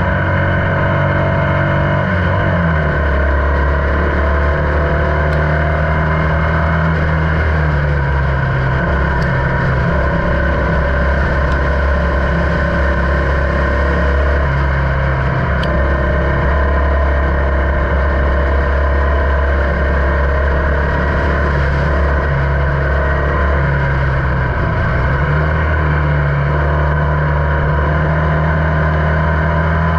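Onboard sound of a Formula Vee race car's air-cooled Volkswagen flat-four engine running hard at racing speed. The engine note drops and climbs back about two seconds in and again around twenty-five seconds in, holding steady in between.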